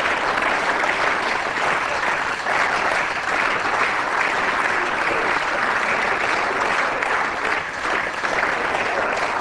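Steady applause from members of a parliament, many people clapping together without a break.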